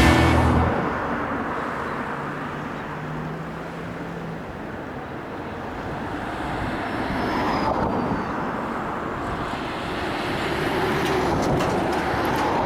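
Background music cutting off at the start, then outdoor road traffic noise, with vehicles swelling past twice.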